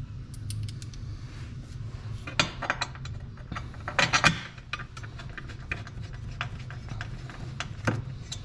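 Metal bolts and a Kspeed intake grate clinking and knocking as they are handled and fitted to a jet ski hull: scattered sharp clicks, bunched around two and four seconds in, with one more near the end, over a steady low hum.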